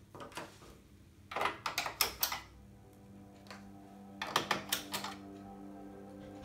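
Two runs of quick, small clicks and taps, one about a second in and one after about four seconds: a screwdriver turning out screws from a plastic computer back panel and the loose screws being handled.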